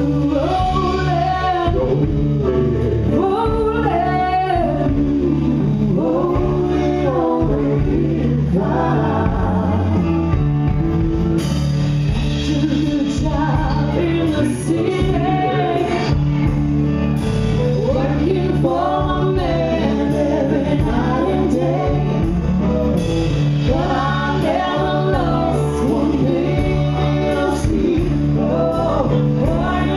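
Live band playing a soul song: a woman sings lead with men singing alongside her, over saxophone, trumpet, guitar and drums.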